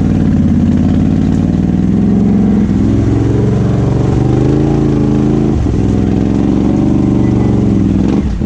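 ATV engine running hard under load, its revs rising and falling, with a brief drop in revs about five and a half seconds in.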